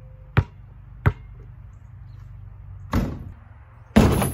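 A basketball bouncing twice on pavement, a sharp smack each time, followed by a duller thud, and a loud hit near the end as the ball strikes the backboard.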